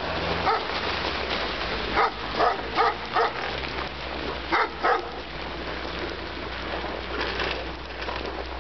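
A dog barking in short single barks, a cluster of them about two to three seconds in and two more near the five-second mark, over a steady rushing noise.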